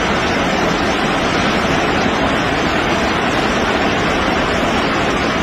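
Rainwater runoff pouring over the stone walls of many stepped farm terraces at once, a loud, steady rushing of falling water.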